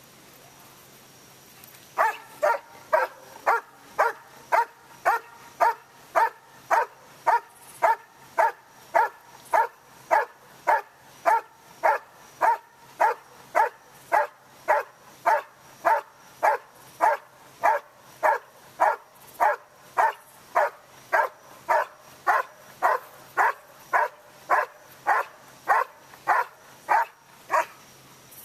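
Dog barking steadily and rhythmically, about one and a half to two barks a second, starting about two seconds in. This is the bark-and-hold of a Schutzhund (IPO) protection routine: the dog has found the helper in the blind and keeps him there by barking.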